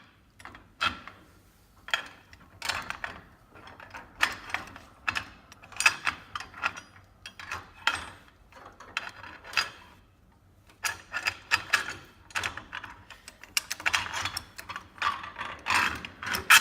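Irregular metallic clinks and clicks of steel U-bolts, bracket plate, washers and nuts being handled and fitted, with short pauses about halfway through and a busier run of clinks near the end.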